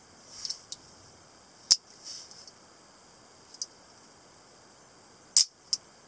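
Lever-lock stiletto switchblade being worked by hand: sharp metallic snaps from its blade and lever mechanism, two loud ones at about two seconds in and near the end, with lighter clicks and brief handling rustles between.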